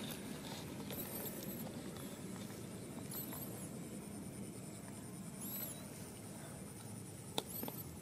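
Baby macaque giving short, very high squeaks, four times about two seconds apart, with a sharp click near the end.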